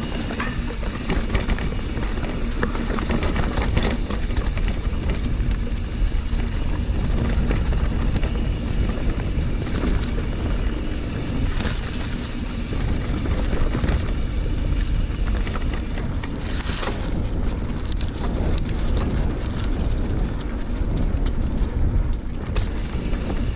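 Mountain bike rolling over a dirt trail, with tyre rumble and wind buffeting a helmet-mounted action camera's microphone in a steady, loud noise.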